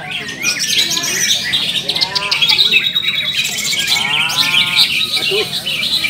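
Many caged green leafbirds (cucak ijo) singing at once: a dense, continuous chorus of high, quick whistles and chattering trills, with a lower, drawn-out call about four seconds in.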